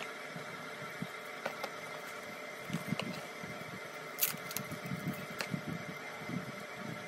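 Light handling noises of a smartphone being unboxed: the cardboard retail box sliding open, rustling, and a few small clicks and taps, the sharpest about four seconds in. A steady fan-like hum runs underneath.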